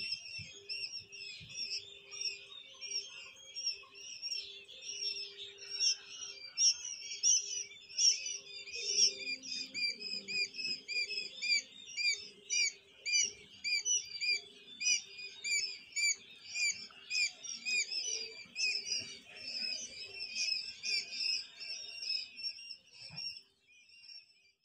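A crowded brood of Japanese quail chicks peeping nonstop, many short high-pitched chirps overlapping one another; the peeping stops near the end.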